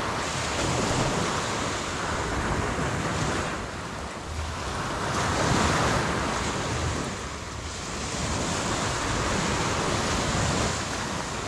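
Sea surf washing onto the beach, a steady rush that swells and eases a few times, with wind buffeting the microphone.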